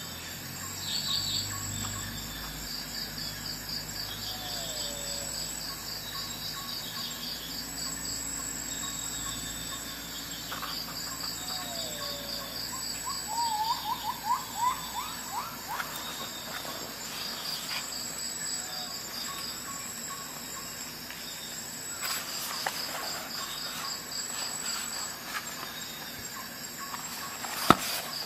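Crickets chirping in repeated high pulsed trills, with a few short bird calls in the middle. Near the end there is a sharp click.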